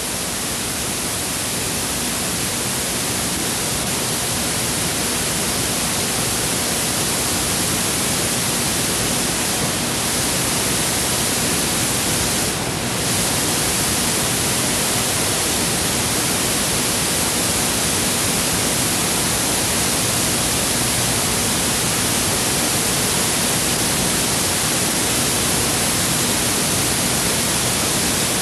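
Steady hiss of an old analogue video tape's silent soundtrack, even and fairly loud, with a brief dip about twelve seconds in.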